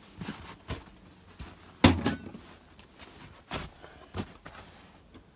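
A handful of short, sharp knocks and clunks from handling a pipe fitting at a tank's ball valve, about six in all, the loudest roughly two seconds in.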